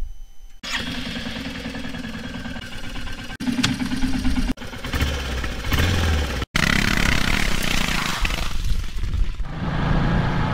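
Royal Enfield Classic 350's single-cylinder engine running and revving, in several short clips cut together. From about six and a half seconds in, the bike is under way, with wind rushing over the microphone along with the engine.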